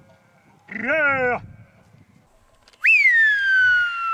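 A shepherd's loud whistle to his flock: one long note that slides down in pitch and flicks sharply up again at the end. Before it comes a short call that rises and falls.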